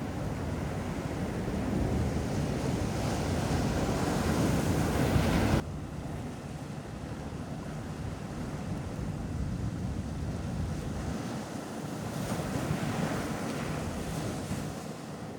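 Ocean surf washing onto a beach, with wind rumbling on the microphone. The wash builds over the first five seconds and drops off abruptly about five and a half seconds in, then carries on more softly, with another wave swelling near the end.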